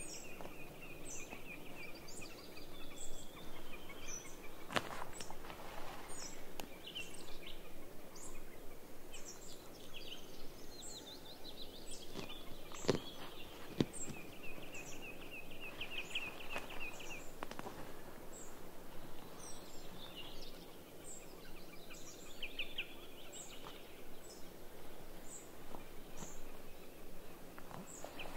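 Birds singing in a forest: a high, thin note repeated about once a second, with trilled song phrases coming and going. A few sharp clicks and handling sounds come from a mosquito net being staked out on the ground.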